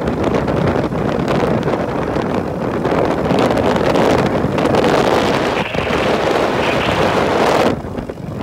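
Wind rushing over the microphone of a moving bike, with steady road and vehicle noise underneath. The noise dips briefly near the end.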